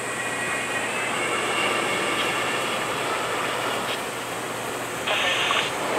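A Boeing 787 airliner's jet engines running: a steady rush of noise with a faint high whine over it. Just after five seconds a louder hissing burst in a narrow band begins.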